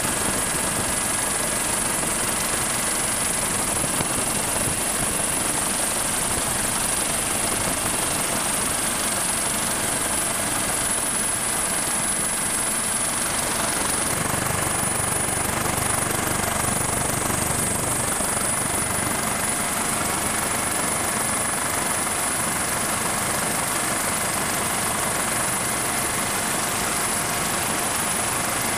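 MH-65 Dolphin helicopter's twin turboshaft engines and rotor running steadily in cruise flight, heard from aboard: a constant noise with thin, steady high-pitched turbine whines over it. About halfway through, the low rumble gets heavier.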